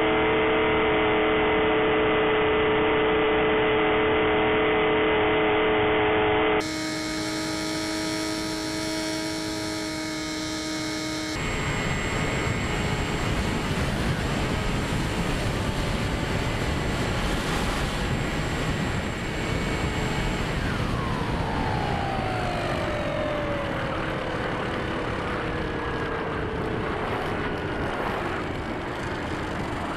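Electric motor and propeller of a Bixler 3 RC plane in flight, heard from on board with wind rushing past: a steady drone, then from about twenty seconds in the motor's pitch slowly falls as it winds down.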